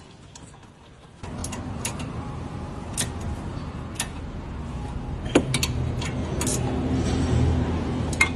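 Steady low mechanical rumble that starts abruptly about a second in and slowly grows louder, with scattered sharp clicks on top.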